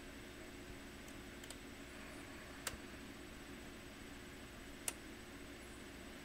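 Two sharp clicks, about two seconds apart, with a few fainter ticks, over a faint steady hum.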